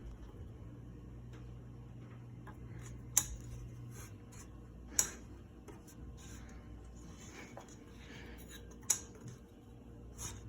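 Hampton Bay Marquesas ceiling fan motor humming low and steadily, the hum fading out about four seconds in, with three sharp clicks spaced a couple of seconds apart.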